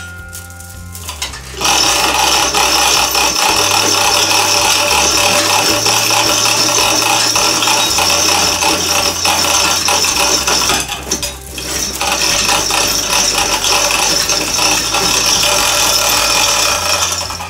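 Hand-operated chain hoist lowering a heavy mower, its chain rattling continuously through the hoist, with a brief pause about two-thirds of the way through.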